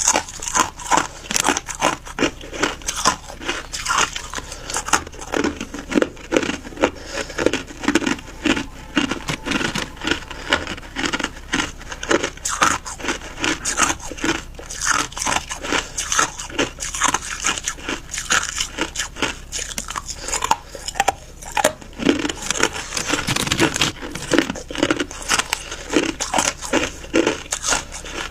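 A person chewing ice: a steady run of sharp, crackling crunches, a few a second.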